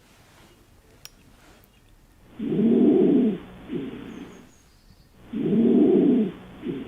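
Recorded chest-auscultation lung sounds, as heard through a stethoscope: two breaths about three seconds apart, each a loud low sound lasting about a second followed by a shorter, quieter one.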